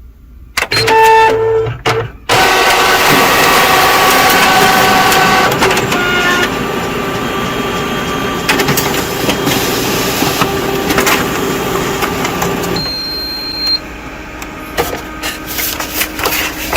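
Canon imageCLASS D1350 copier's automatic document feeder running a test sheet: after a brief pitched start, its motors and rollers run steadily for about ten seconds, then it stops with a short high tone and a few clicks. The sheet goes through without jamming, a sign that the feeder sits properly aligned on its new hinge.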